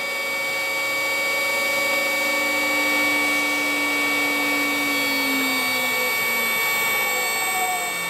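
Small electric motor run by a Powtran variable-frequency drive, slowing as the drive's output is turned down from about 50 Hz to 30 Hz. Its whine falls in pitch over the second half, over several steady high whining tones.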